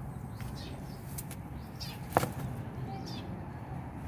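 Small birds chirping repeatedly, short falling chirps about every half second, over a steady low rumble of outdoor background noise. A single sharp click sounds about two seconds in.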